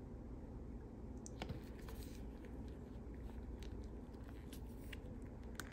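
Faint scattered clicks and light taps of small engine parts being handled and turned over, over a steady low hum.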